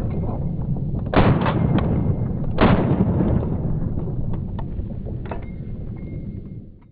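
Pistol shots: two sharp reports about a second and a half apart, the first about a second in, over a steady low rumble, with a few fainter clicks later; the sound fades out near the end.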